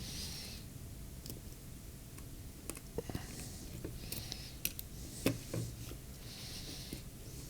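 Light clicks and taps of small repair tools and screws on a phone's housing and logic board, with a few sharper clicks about three and five seconds in and short soft hisses between.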